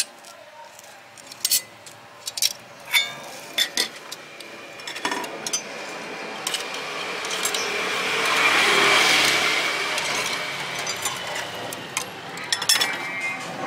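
Metal tongs clinking against small steel pan lids and pans, a handful of sharp clinks early on and a few more near the end. In between, a rushing hiss swells up and fades away over several seconds and is the loudest sound.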